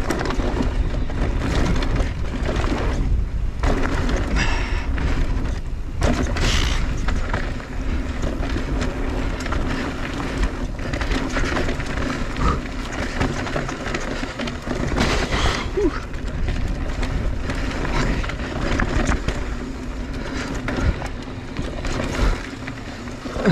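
2021 Mondraker Crafty Carbon R electric mountain bike descending a trail: knobby tyres rolling over dirt and rock, with frequent knocks and rattles from the bike. Wind rumbles on the microphone.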